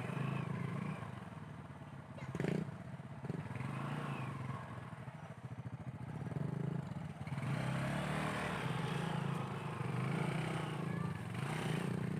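Motorcycle engine running on a rough off-road trail, with a sharp knock about two and a half seconds in and louder, noisier running from past the middle.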